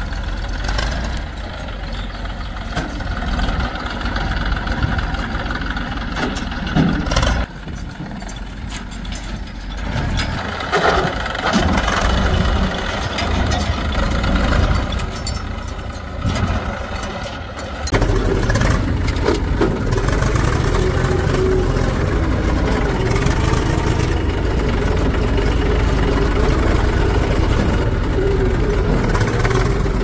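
Diesel engines of heavy machinery running. In the first half the engine noise is uneven, with a few knocks; a little past halfway a louder, steady engine drone takes over.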